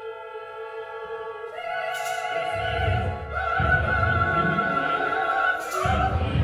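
Opera-style music: a mezzo-soprano holding long high notes over the orchestra. Deep low notes enter about two and a half seconds in and the music swells louder.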